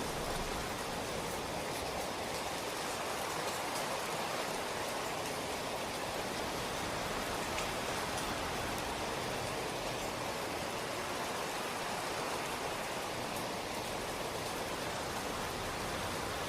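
Steady rain falling, an even hiss of many drops with faint scattered drips.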